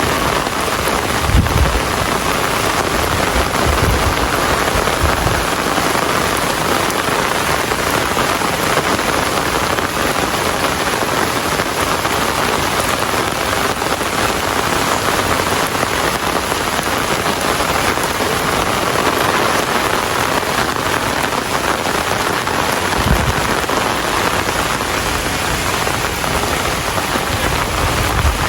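Steady, heavy rain falling on surfaces, a dense even hiss. A few short low rumbles come through in the first few seconds and again near the end.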